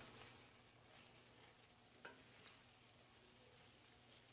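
Faint sizzle of ground beef browning in a cast iron skillet, with a few light clicks and scrapes from a wooden spatula stirring it, over a low steady hum.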